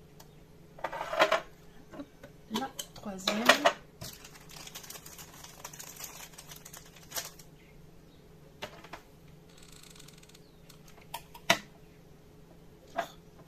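Close handling noise of candle-making: two louder bursts in the first few seconds, then a few seconds of crinkling from a clear plastic bag of candle wicks, then a handful of sharp light clicks as glass jars and wooden craft sticks are set down and moved.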